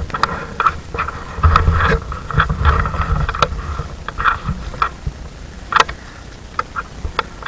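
Irregular crackles and clicks over a low rumble.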